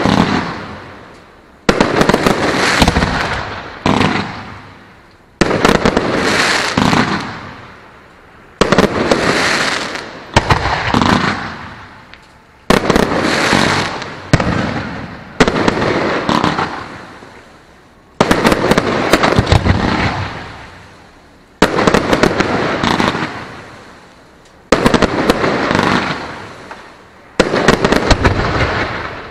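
Aerial fireworks shells bursting overhead in quick succession. Each is a sudden loud bang followed by a crackling tail that dies away over a couple of seconds, with a new burst every one to three seconds.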